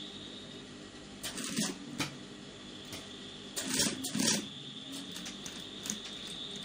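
Industrial sewing machine's motor running with a steady whine, with a few short bursts of stitching and fabric handling about a second in and again around four seconds in.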